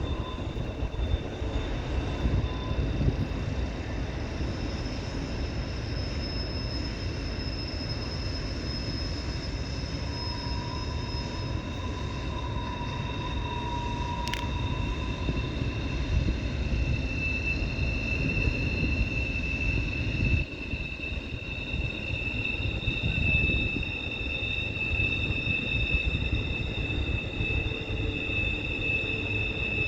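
Freight train rolling past on a curve, its wheels squealing in several long, steady high tones over the low rumble of the cars.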